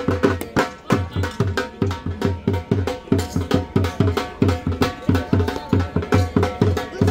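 Dhol drum beaten in a fast, steady rhythm, deep bass strokes about four to five a second.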